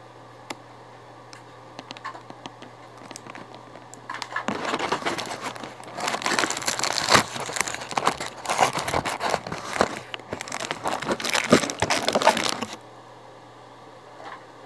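Plastic packaging crinkling and crackling as it is handled and crumpled for about eight seconds, then stopping suddenly. A few light clicks of small parts being handled come before it.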